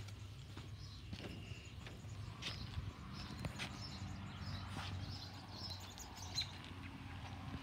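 Footsteps of someone walking along a garden path, with birds chirping faintly in the background over a steady low hum.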